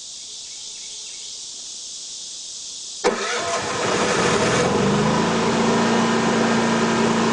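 Yamaha generator started by its remote about three seconds in: a sudden start, a second or two of rising engine noise as it catches, then the engine settles into a steady run with an even hum.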